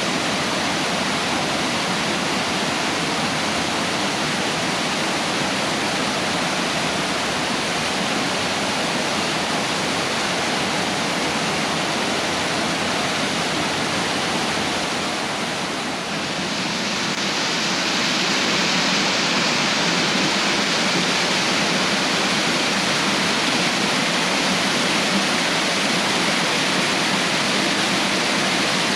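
Creek waterfall in full flow, swollen by heavy rain: a steady rush of falling water. Around the middle it briefly dips, then comes back a little louder and brighter.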